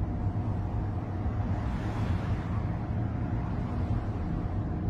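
Car driving along: a steady low rumble of road and engine noise, with a brief rising and falling whoosh about two seconds in.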